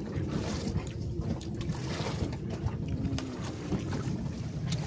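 Steady low rumble of a fishing boat with wind on the microphone, and a few faint light clicks.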